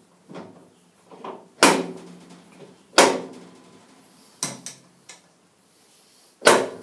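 Metal-on-metal clanks and knocks with a short ring after each, from a small three-jaw chuck being handled and fitted at the end of a steel boring bar. There are three loud knocks, about one and a half seconds in, about three seconds in and near the end, with lighter taps between them.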